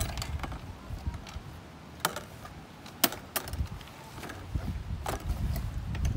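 Scattered clicks and knocks of a Porta-Bote folding boat's seat and fittings being handled and set in place, with a few sharper knocks about two, three and five seconds in.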